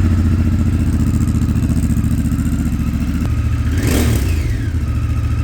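Honda Africa Twin's parallel-twin engine idling through a road-legal REMUS aftermarket exhaust, with a steady low beat. The throttle is blipped once about four seconds in, the revs rising and falling back. A second blip starts near the end.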